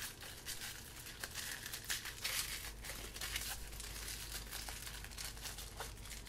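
Gift wrapping paper crinkling and rustling in the hands as a package is unwrapped, in a run of irregular crackles.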